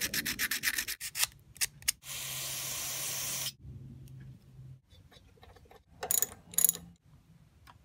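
Emery cloth scraping a spark plug's electrode in quick strokes, then a steady hiss of aerosol brake parts cleaner sprayed for about a second and a half. A few sharp metal clicks near the end.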